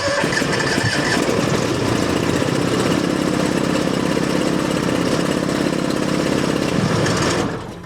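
Fuel-injected gasoline skid steer engine being cranked over by its starter for about seven and a half seconds without firing, then the cranking stops. It is a hard cold start: this engine has no choke and is reluctant to catch in the cold.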